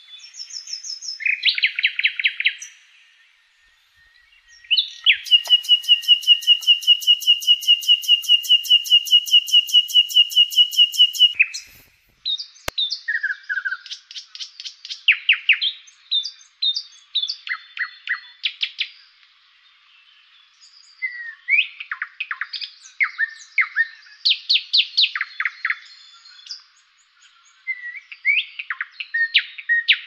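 Songbirds singing and calling: a few chirps, then a fast run of repeated notes on one steady pitch, about six a second for some six seconds, then a stream of varied short chirps and whistled phrases.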